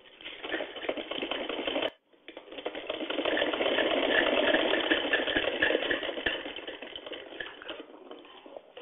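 Hand-cranked sewing machine stitching fast through cloth, a rapid even clatter of the needle and feed. It runs in two spells: the first stops abruptly about two seconds in, and the second picks up and slows away near the end.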